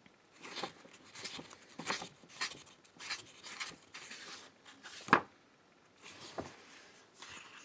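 Paper pages of a hardcover book being flipped and rustling in a series of short swishes, with one sharp tap about five seconds in.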